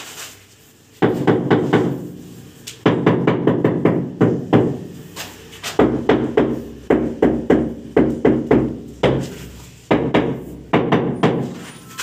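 Large 2×4 ft ceramic wall tile being tapped into its bed of fresh mortar on the wall to seat it: four quick runs of sharp knocks, several a second, each with a short hollow ring from the tile.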